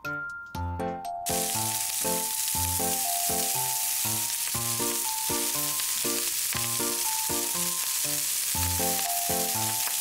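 Cut wiener sausage pieces sizzling steadily in a hot frying pan, the sizzle starting about a second in.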